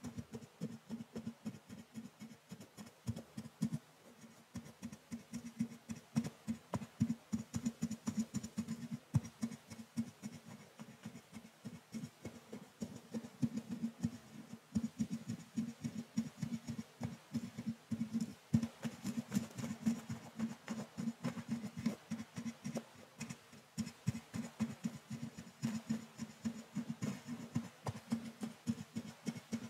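A thin brush stroked rapidly across a microphone's mesh grille, heard right at the microphone: a steady run of soft, scratchy strokes, about three a second.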